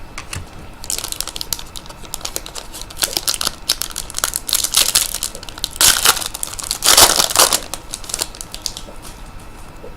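Plastic trading-card packaging crinkling and crackling in the hands, with louder bursts about six and seven seconds in.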